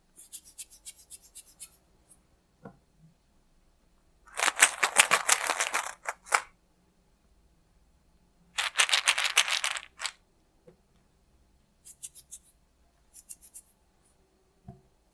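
Homemade Montessori sound cylinders, plastic chocolate-egg toy capsules filled with small dry things (rice, sea salt, chickpeas, coins), shaken by hand: quick rattling in several bursts, two of them much louder than the rest.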